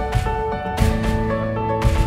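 Background music: held pitched tones over a steady drum beat.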